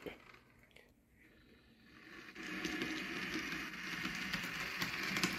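Near silence for about two seconds, then the steady whir of an HO scale model streetcar running along its track, with light clicks from the wheels on the rails.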